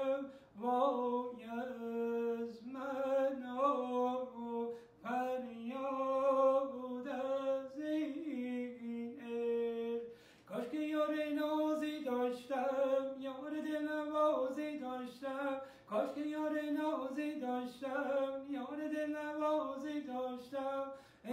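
A man singing a traditional Persian tasnif unaccompanied, in long ornamented phrases with wavering turns on the held notes, each phrase breaking off for a breath about every five seconds.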